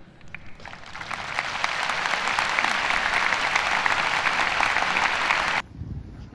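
Large stadium crowd applauding, a dense patter of clapping that builds over the first second and then cuts off suddenly near the end.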